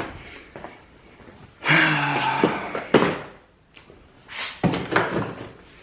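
A few knocks and clunks of handling in a garage, the sharpest about three seconds in, with a short rough pitched sound just before it.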